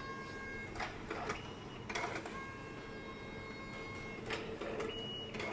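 KC200 card printer printing a test card: a motor whine at several pitches that stops and restarts, with mechanical clicks and clunks about every second as the card is fed and moved.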